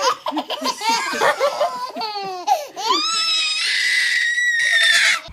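A small child laughing and squealing, ending in a long high-pitched squeal near the end.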